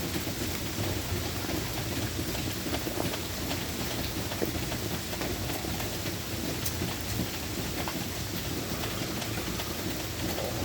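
Steady rain falling, with many small drops ticking on a surface over an even hiss and a low steady rumble underneath.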